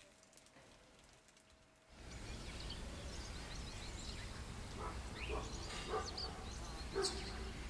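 Near silence for about two seconds, then outdoor ambience: a steady low rumble with small birds chirping over and over, and a few short soft taps.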